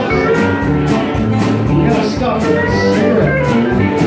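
Live country-style song: an acoustic-electric guitar strummed to a steady beat, with a singer's voice over it.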